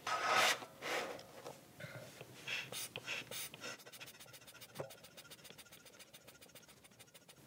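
A car air jack being pumped up by hand under a power amplifier: handling and scraping noises, then a run of short puffs of air, then faint rapid ticking.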